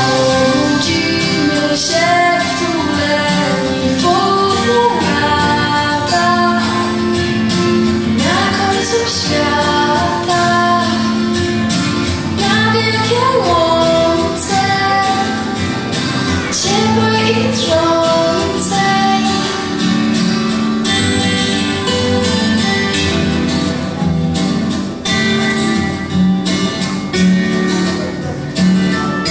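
Recorded pop song played back for a playback act: a female voice singing a melody over strummed guitar and backing instruments.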